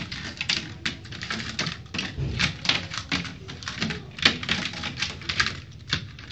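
Toy airplanes clattering and knocking against the slats of a wooden bench as a small child handles them: a quick, irregular run of clicks and taps.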